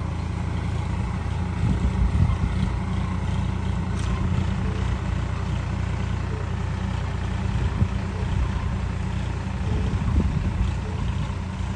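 Tractor engine running steadily under load with a low, even drone.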